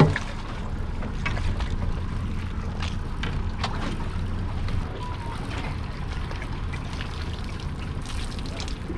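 Water splashing and dripping as a long-handled dip net scoops live squid out of a bait pen and dumps it into a boat's bait tank, with a sharp knock right at the start. A steady low rumble runs underneath.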